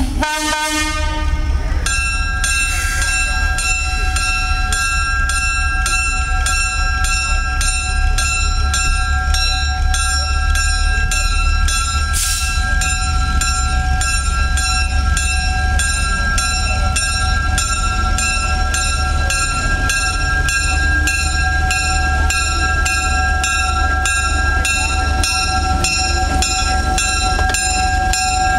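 Diesel switcher locomotive USA 7751 gives a short horn blast, then its bell rings steadily, about two strikes a second, over the low rumble of the engine as it rolls past.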